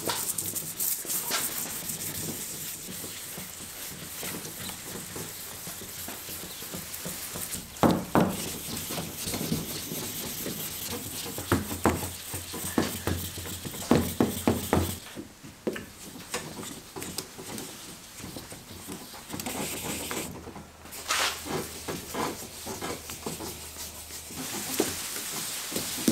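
Wet sandpaper on a hand sanding pad scrubbed back and forth over a wet, sealed fibreglass body-panel plug: a rasping hiss with short strokes and a few knocks, pausing briefly now and then.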